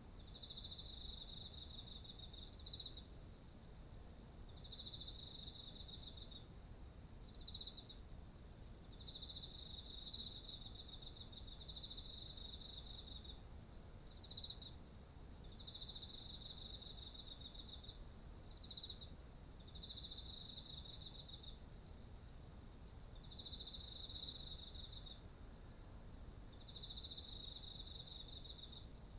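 Autumn insects chorusing by a ripening rice field: one steady, very high trill runs on without a break, while other insects sing lower pulsed trills in phrases of one to three seconds, stopping and starting with short gaps.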